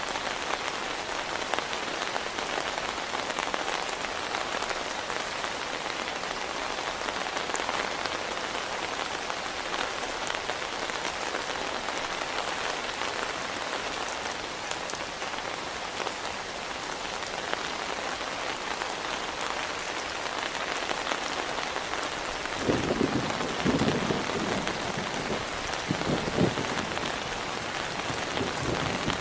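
Heavy rain falling steadily. Low thunder rumbles in near the end, rolling irregularly for several seconds.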